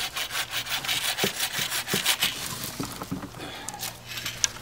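Adventure Sworn bucksaw cutting through a wooden pole in quick back-and-forth strokes, which stop a little past halfway.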